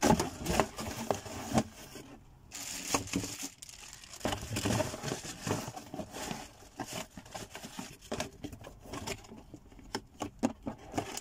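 Clear plastic packaging crinkling and rustling as it is handled over a cardboard box, mixed with irregular taps and scrapes on the box. The crinkling is busiest in the first part and thins to scattered clicks near the end.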